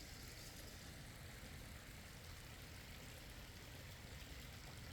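Faint, steady rush of flowing water with a low rumble underneath.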